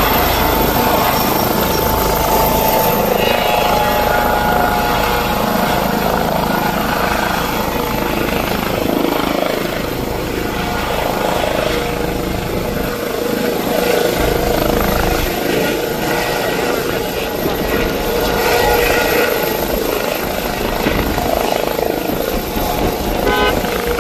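A helicopter running loud and close, its rotor and engine noise steady, with voices mixed in.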